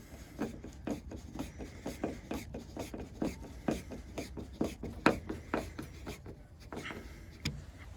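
Small clicks and rubbing from hand work on a car door handle and its screw, a run of short sharp clicks at about two or three a second.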